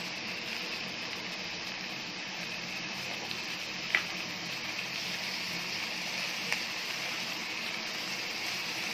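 Onion-tomato masala frying in oil in a pan with a steady sizzle, with two short clicks about four and six and a half seconds in, the first the louder.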